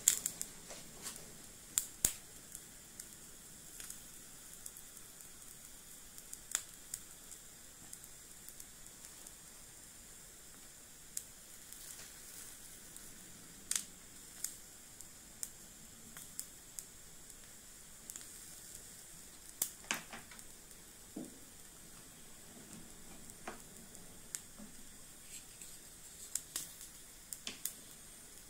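Small steaks and corn sizzling over glowing charcoal on a miniature grill: a faint steady hiss with scattered sharp pops and crackles.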